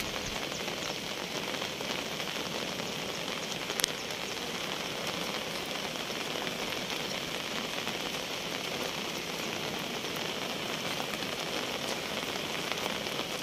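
Steady hiss of falling rain mixed with the rush of the swollen, flooding river. A single short click about four seconds in.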